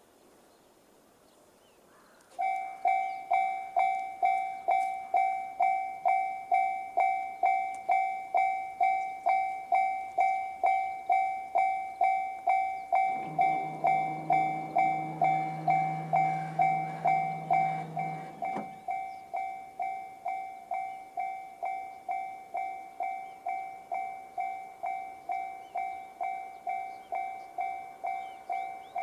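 Japanese railway level-crossing alarm in the JR standard electronic tone, starting abruptly about two seconds in and ringing in even, high pitched strikes about twice a second: the warning that a train is approaching. A low steady hum joins it for about five seconds midway.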